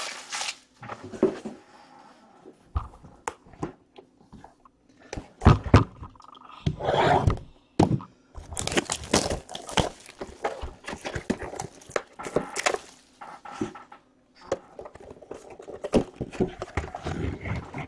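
Plastic shrink wrap crinkling as it is torn off a cardboard trading card box, with cardboard scraping and a few thumps as the box is handled and its lid opened.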